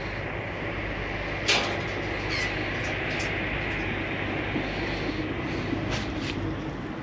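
Steady outdoor rumble of wind and open water across the microphone, with a few sharp clicks and taps as a fishing hook and rig are handled while a small codling is unhooked; the loudest click comes about a second and a half in.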